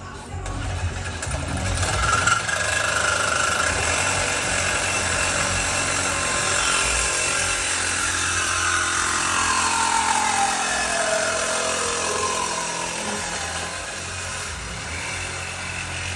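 A motor running steadily. Past the middle, a whine glides slowly down in pitch over several seconds.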